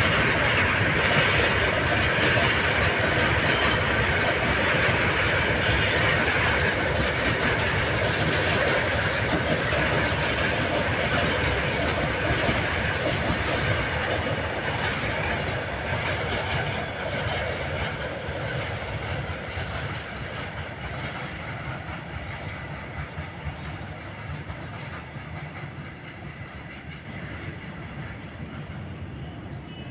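Freight train of open box wagons rolling past at close range: a steady rumble and clatter of steel wheels on the rails, with a bright high hiss over it and a few sharp clacks in the first few seconds. The last wagons and brake van go by, and the sound fades steadily through the second half as the train moves away.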